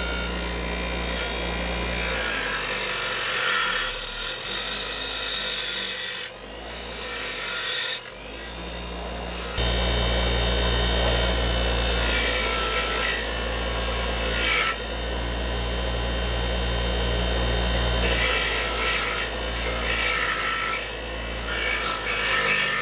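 Bench grinder running with a steady motor hum while a rusted metal fishing spoon, held in locking pliers, is pressed against the spinning wheel in repeated passes of a second or two. Each pass brings a harsh grinding hiss as the rust is ground off.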